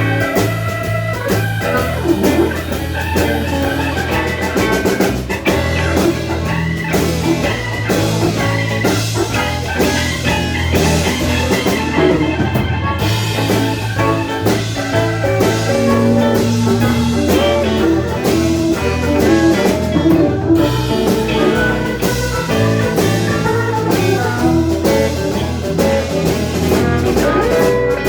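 Live blues band playing an instrumental passage, with guitar and drums.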